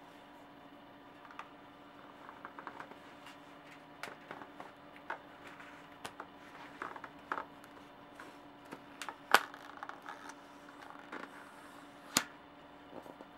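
Rim tape being handled and pressed into a bicycle rim's channel: scattered light clicks, taps and rubbing, with two sharper clicks, one about nine seconds in and one about twelve seconds in, over a faint steady hum.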